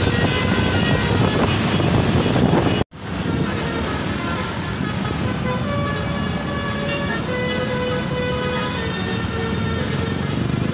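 Bus 'telolet' multi-tone horn sounding a tune in held notes that step from pitch to pitch, over engine and traffic rumble. The sound cuts out abruptly about three seconds in and resumes at once.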